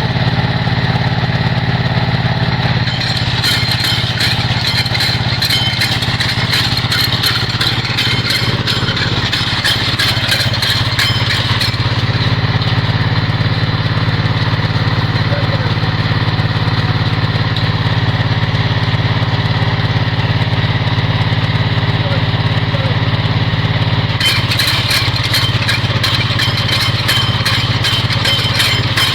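A drilling machine's engine running steadily under load. A rapid clicking rattle joins it from about three seconds in to about twelve, and again from about twenty-four seconds in.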